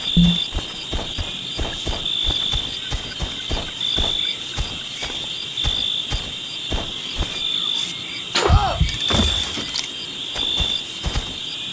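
Crickets chirping steadily in a high trill that pulses about once a second, with irregular light knocks and taps throughout and a brief voice-like squeal about eight and a half seconds in.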